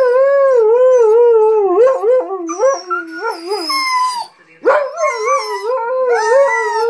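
A husky howl-singing in a long wavering howl that rises and falls in pitch two or three times a second. It breaks off briefly about four seconds in, then starts again.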